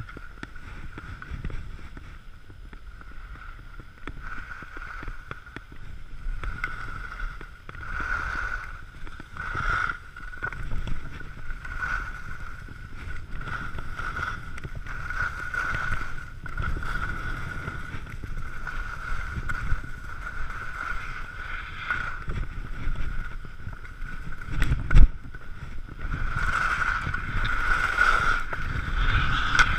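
Wind rushing over the microphone and skis scraping across packed snow on a downhill run, gusting up and down, with a steady high whine underneath. A single sharp knock comes a few seconds before the end.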